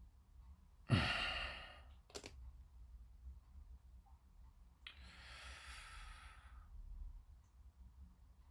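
A man sighs heavily about a second in, then a single sharp click; a softer, longer breath out follows about five seconds in.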